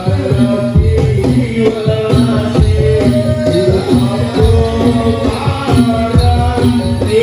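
Live Javanese kuda kepang ensemble music: a wavering melody line over steady low drum strokes, with jingling percussion.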